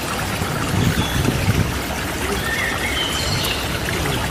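Steady trickling and splashing of shallow water, with a few faint high chirps over it.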